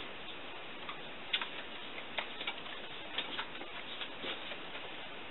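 Light, irregular clicks and flicks of cards being sorted and laid on the table, over a steady room hiss.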